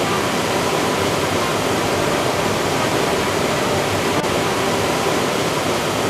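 Rushing water of a mountain valley stream cascading over rocks, a steady, loud, unbroken rush.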